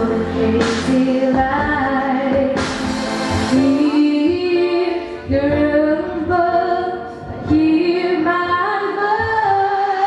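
A young girl singing a pop-style song into a microphone over a recorded instrumental accompaniment, her melody moving between held notes.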